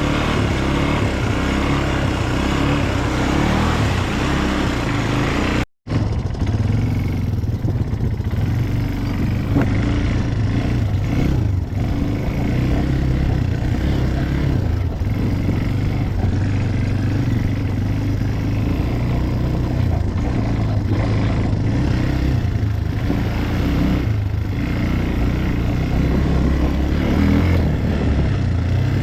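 ATV engine running steadily under load while riding off-road, heard from on board. The sound drops out briefly about six seconds in.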